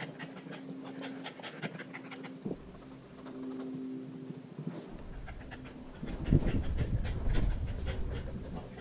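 Six-month-old husky puppy panting in rapid, even breaths right at a GoPro strapped to her harness. About five seconds in, low rumbling and thumps take over as she gets up and moves, shaking the harness-mounted camera.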